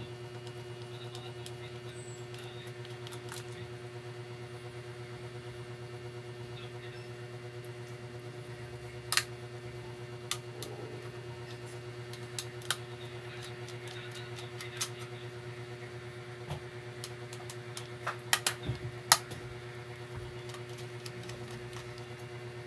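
Scattered sharp clicks and taps of small plastic and metal laptop parts being handled while the cooling fan is taken out. A cluster of clicks comes near the end, over a steady low hum.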